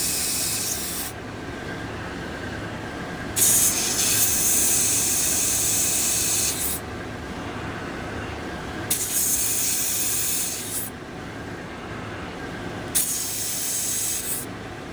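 Hart 20-volt cordless tire inflator running on a car tire valve, its small compressor giving a steady pulsing hum. Loud hissing air comes and goes about four times.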